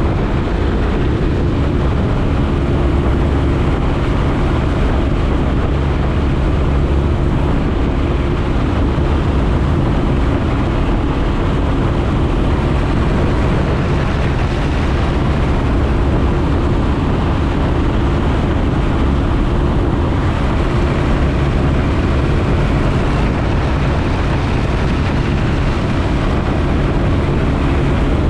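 Piper J-3 Cub's air-cooled flat-four engine and propeller running steadily, heard from inside the cockpit together with the rush of wind.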